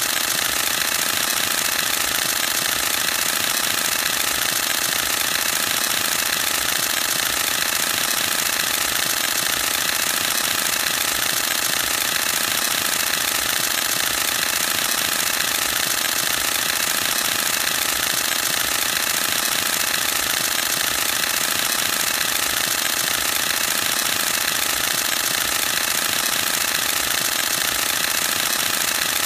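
Canon EOS-1D X Mark II's mirror and shutter firing in a continuous high-speed burst: a very fast, even mechanical clatter that carries on without a break.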